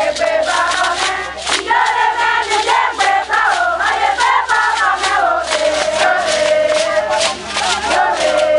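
A group of villagers, mostly women, singing together in chorus, with sharp rhythmic beats running under the song.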